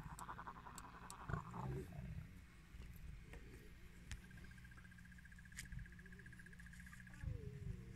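Lioness growling for about a second and a half at the start, a rapid pulsing rasp, with a few soft wavering calls near the end over a steady low rumble.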